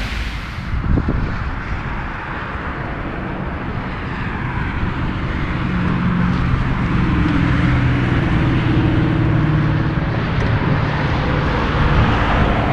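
Heavy diesel truck engine running on a highway over tyre and road noise. Its steady drone comes in about six seconds in and gets louder toward the end.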